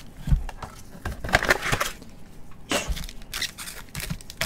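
Foil-wrapped trading-card packs being pulled out of a cardboard box and handled: scattered crinkling and scraping of wrappers against cardboard, with a soft knock near the start.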